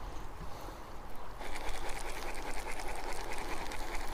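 Baitcasting reel giving a rapid, fine clicking that starts about a second and a half in, over the steady rush of river water.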